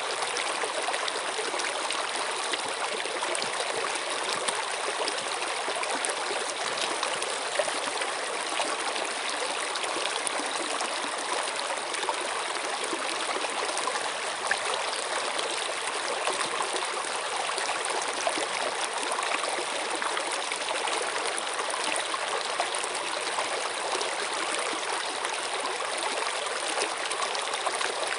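Running water in a stream, a steady rushing with continuous small splashes and trickles.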